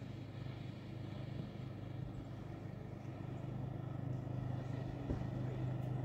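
A steady low motor hum.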